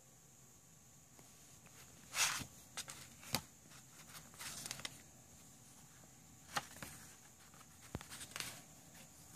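Faint handling of paper CD booklets and card inserts: a scattering of short rustles and clicks as they are picked up and moved, the loudest about two seconds in, over a steady faint high hiss.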